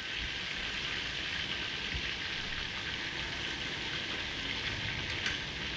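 Food deep-frying in hot oil: a steady, even sizzle.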